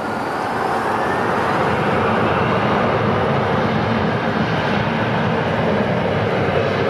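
Jet airliner's engines at high power on a wet runway: a loud, steady rushing noise that grows louder over the first second or two, with a faint rising whine near the start.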